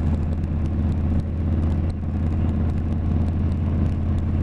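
Harley-Davidson touring bagger's V-twin engine running steadily while cruising, heard from the rider's seat.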